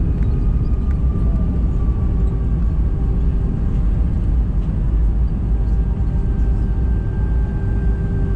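Cabin noise of an Airbus A319 rolling out on the runway just after landing, spoilers raised: a loud, steady rumble of engines and undercarriage, with a faint whine that slowly falls in pitch over the first few seconds.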